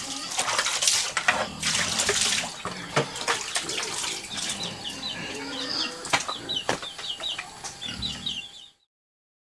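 Water splashing and pouring as dishes are washed by hand, with a few sharp clinks of metal utensils. A small bird chirps in quick repeated high notes through the second half, and all sound cuts off suddenly near the end.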